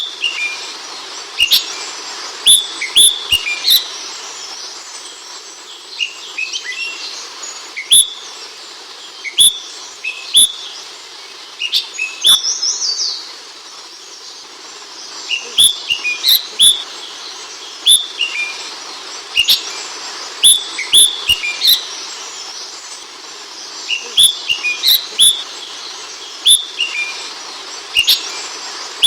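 Ashy bulbul (Hemixos flavala) calling: short, sharp chirps in clusters of several, with pauses of a second or two between clusters, over a steady background hiss.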